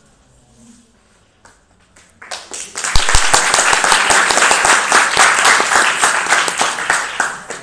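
A group of people applauding: many hands clapping together, starting suddenly about two seconds in, staying loud and dense, and dying away near the end.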